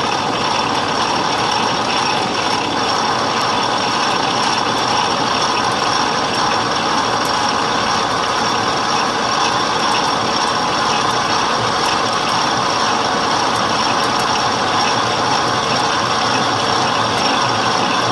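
Metal lathe running steadily at a slowed speed, a 7/8-inch drill bit cutting into a steel block held in the four-jaw chuck.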